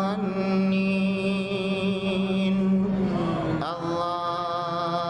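Qur'an recitation: the reciter's voice holds a long, melodic drawn-out vowel. About three and a half seconds in it slides down through a short wavering run, then settles onto a new held note.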